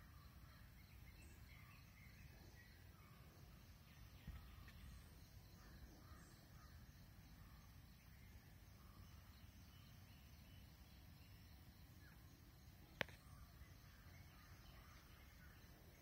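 Near silence: faint outdoor ambience with a low rumble and scattered distant bird calls, and a single sharp click near the end.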